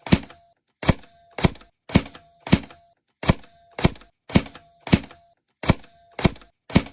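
Tokyo Marui Steyr AUG high-cycle airsoft electric gun fired in single shots, about twelve sharp cracks a little over half a second apart, each with a brief ringing tone after it.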